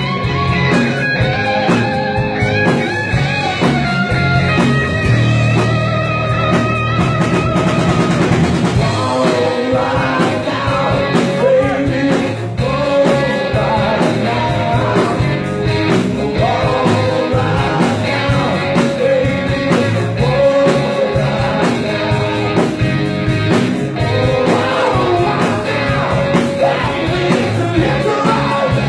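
A rock band playing: electric guitar and drum kit, with a singer's voice coming in about eight seconds in and carrying on over the band.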